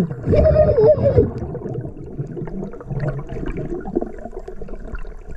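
A freediver's muffled cry underwater: a wavering held note, about a second long near the start, is followed by low water noise and bubbling around the camera.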